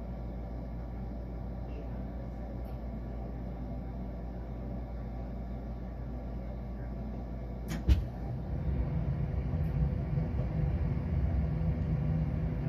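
Furnace starting up: a steady low hum, then about eight seconds in a sharp click and thump, after which a louder low rumble sets in and keeps going.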